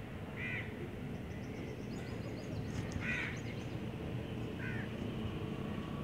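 A bird calling three times in short, harsh calls, spaced a second or two apart, over a steady background hum.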